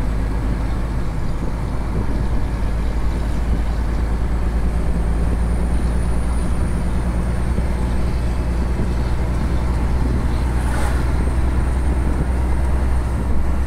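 Truck driving on the road, heard from inside the cab: a steady low engine and road rumble with no change in pace, and a single brief click about eleven seconds in.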